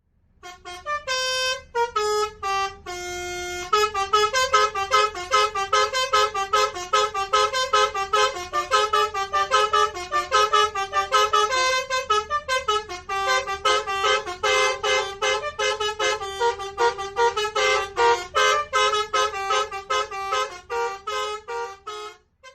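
Indonesian bus 'telolet' musical horn of the Basuri type playing a tune: a few slower, held toots at first, then a fast run of short toots at changing pitches. It stops just before the end.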